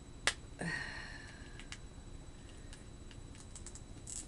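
A mail package being torn open and handled: one sharp snap about a quarter second in, then faint crinkling and small clicks that grow busier near the end.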